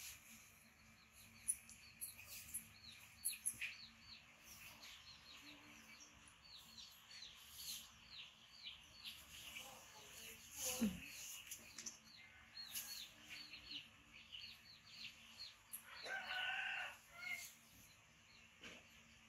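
Birds chirping in the background: many short, high, falling chirps throughout, with a longer, lower call of about a second near the end.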